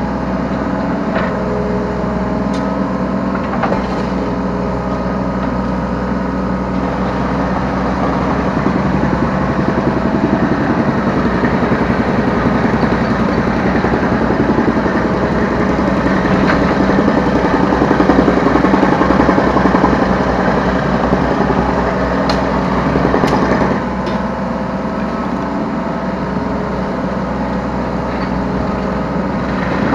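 Yanmar B3Σ 3-ton mini excavator's diesel engine running under hydraulic load, heard from the operator's seat. It works harder through the middle and eases back a few seconds before the end, with a few sharp knocks along the way.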